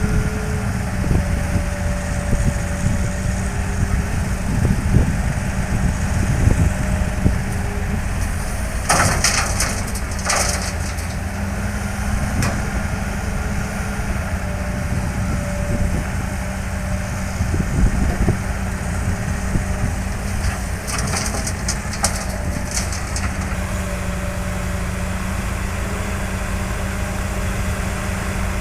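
Diesel engines of heavy road-construction machinery running steadily, with two short spells of hissing and rattling, about nine and twenty-one seconds in.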